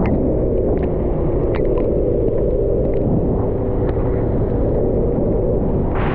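Aprilia SXR 50 scooter running on the move, heard as a steady low rumble of engine and ride noise.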